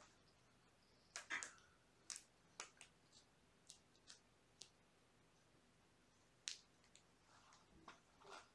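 Very quiet room with scattered soft clicks and rustles from kittens tussling in a plush bed and scampering on a fleece blanket, busiest about a second in and again near the end.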